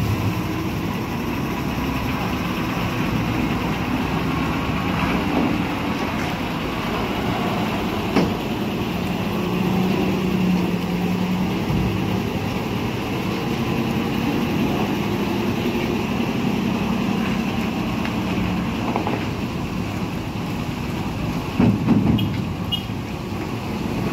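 Heavy diesel truck engines running steadily as loaded trucks pass slowly in a line, with a short knock about eight seconds in and a louder swell of engine noise near the end.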